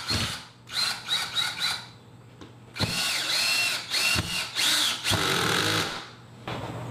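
Cordless drill driving a mounting screw through a wall rack bracket: a few short trigger bursts, a pause, then a longer run of about three seconds, the motor whine rising and falling in pitch, stopping about six seconds in.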